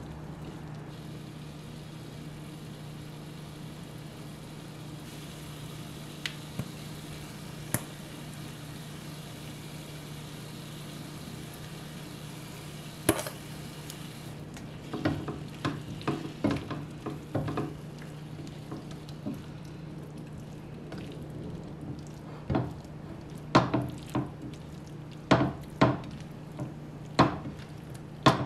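Shrimp and mushrooms sizzling in a nonstick frying pan, over a steady low hum. In the second half a spatula stirs and scrapes, with repeated sharp knocks against the pan.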